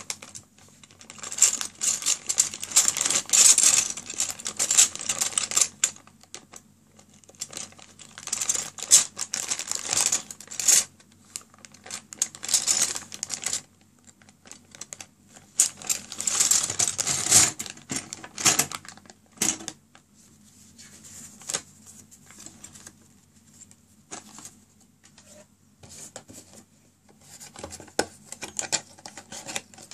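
Small hard plastic crystal-puzzle pieces clattering and rattling against each other inside a sealed plastic bag as it is squeezed and shaken, the bag's film crinkling, in several bursts of a few seconds each. Quieter handling clicks fill the gaps between them.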